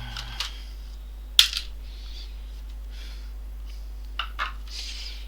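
Scattered clicks and soft rustles from laptop parts being handled during disassembly, the sharpest click about a second and a half in, over a steady low hum.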